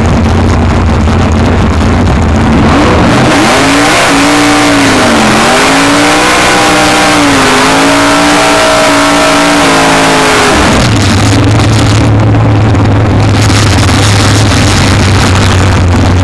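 540 cubic-inch big-block Chevrolet V8 in a drag car idling, then held at high revs for about seven seconds with the pitch wavering, over the rush of rear tyres spinning in a burnout. It then drops back to a steady idle.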